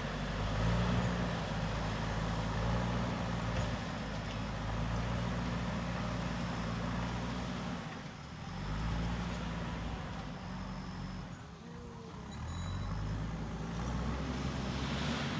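JCB backhoe loader's diesel engine running while it works, its pitch rising and falling with the load, easing off briefly twice, about eight and twelve seconds in.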